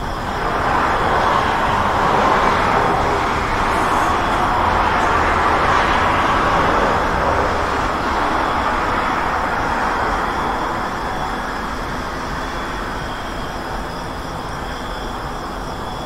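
Road traffic noise: a dense hiss of vehicles passing, swelling over the first couple of seconds and easing off a little in the second half.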